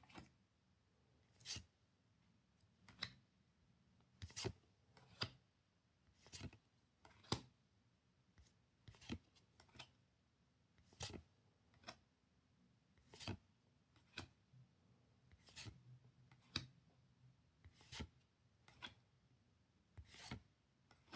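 Pokémon trading cards being flipped through one by one, each card sliding off the stack with a short swish or snap, roughly once a second.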